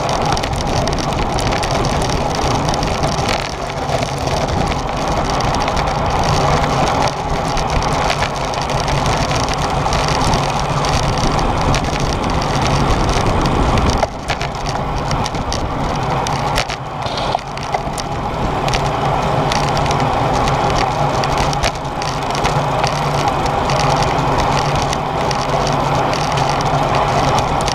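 Steady wind rush and crackle on the microphone of an action camera riding on a road bike in a racing pack, with tyre and road noise underneath.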